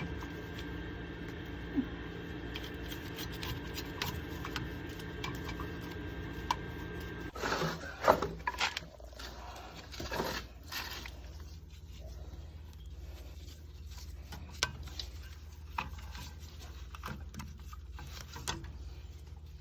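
Light handling noises, with scattered clicks and short rubbing and scraping sounds, from wires and parts being worked on at a furnace relay box. Underneath is a steady low hum that eases off about seven seconds in.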